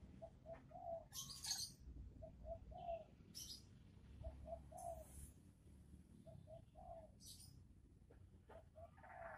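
A dove cooing faintly, a phrase of two or three short notes repeated about every two seconds, with a few brief high chirps in between.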